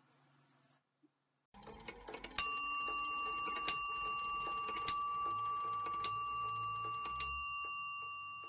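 A clock strikes its bell five times, about a second and a quarter apart. Each stroke rings on and fades, and the first is the loudest. A few clicks of the clock's mechanism come just before the first stroke.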